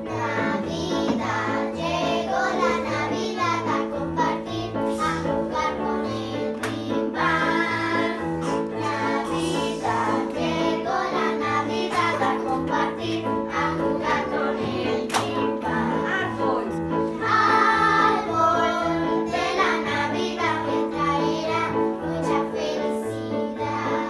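A group of young girls singing together over an instrumental accompaniment with a steady, repeating bass line.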